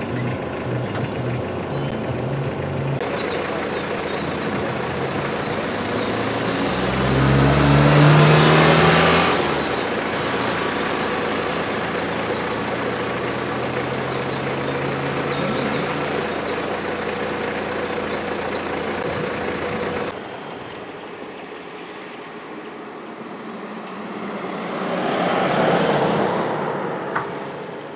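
Road vehicles: a steady engine rumble, with one vehicle going past close by about eight seconds in, swelling and fading. A run of short, high chirps sounds through the middle. Then it is quieter, and another vehicle passes near the end.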